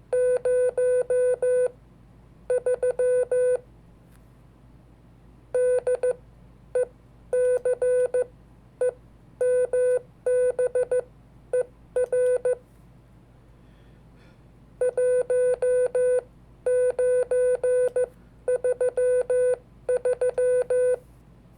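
Morse code (CW) sidetone beeping at one steady pitch, sent by hand in short and long tones grouped into characters, with short pauses between groups and a longer pause about two-thirds of the way through.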